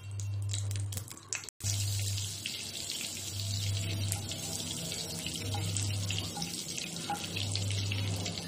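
Butter melting and sizzling in hot olive oil in a nonstick frying pan, a steady hiss with a brief break about one and a half seconds in. Under it a low hum comes and goes about every two seconds.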